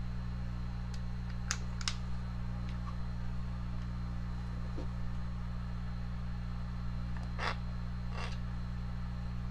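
A few faint clicks and light taps of plastic electric-chainsaw motor parts being handled and fitted together, over a steady low hum.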